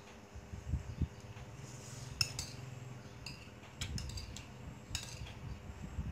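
Metal spoon clinking and scraping against a ceramic rice bowl while eating, with a few sharp clinks spread through it and some low thuds about a second in.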